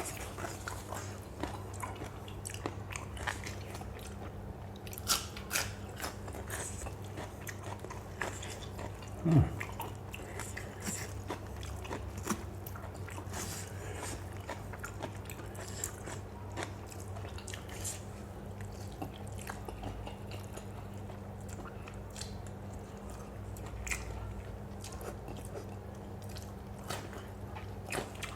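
A person chewing and crunching a spicy lotus-stem and fresh-shrimp salad close to the microphone, with many small wet clicks and smacks over a steady low hum. About nine seconds in there is one short, loud sound that falls in pitch.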